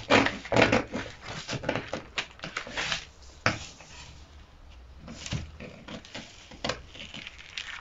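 Scissors cutting through kraft pattern paper: a quick run of snips through the first three seconds, then a few scattered snips.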